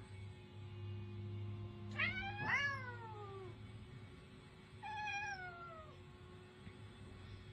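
Domestic cat meowing twice: a long call that rises and then falls in pitch, and a shorter call falling in pitch a couple of seconds later.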